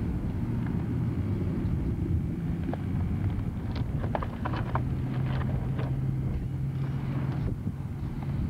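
A low, steady engine drone under wind on the microphone, with a scatter of light clicks and ticks about four to five seconds in.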